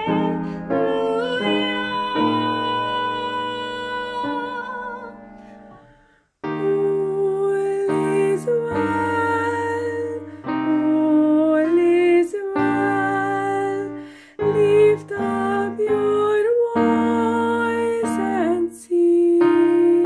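A woman singing a slow song to piano accompaniment; the music fades out about six seconds in. After a brief silence, another woman's voice takes up the song over a digital piano.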